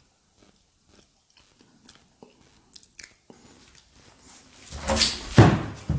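Handling noise: scattered small clicks and scrapes, then a loud crunching rustle about five seconds in that fades before the end.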